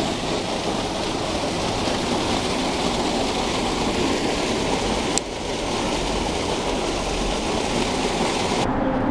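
Water gushing from an outfall in a wooden dock bulkhead and splashing into the river below: a steady rush, with a single click about five seconds in.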